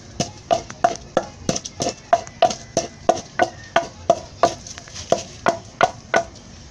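Wooden pestle pounding moistened spices in a wooden mortar, making a steady knock about three times a second.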